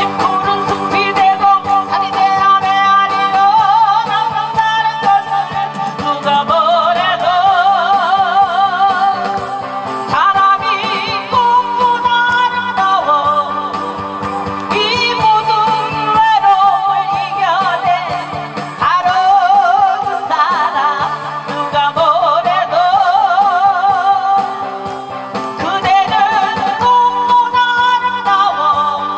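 A woman singing through a handheld microphone over amplified instrumental accompaniment with a steady beat. Her held notes carry a wide vibrato.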